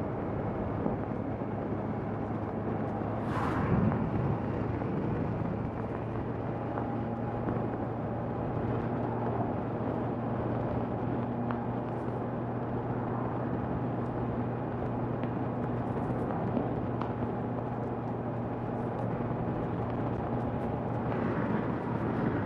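Honda CBR650R inline-four engine running at a steady, moderate speed under wind and road noise, with a brief hiss about three and a half seconds in.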